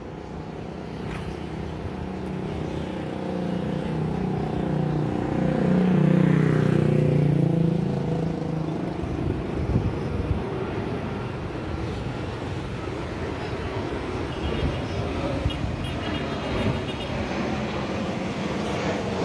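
Boeing 737-800 on approach with gear down, its CFM56 jet engines giving a steady rumble as it nears overhead. About six seconds in, a road vehicle passes close by, swelling and falling in pitch, and is the loudest sound.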